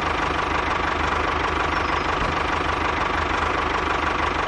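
Homemade mini tractor running steadily, with an engine-like drone and a rapid, regular low knocking pulse as it pulls its loaded trailer.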